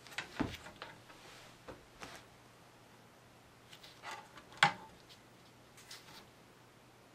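Scattered light taps and knocks, with a brief scrape, as foam core, backing board and cutting tools are handled on a work surface. One sharper clack comes about four and a half seconds in.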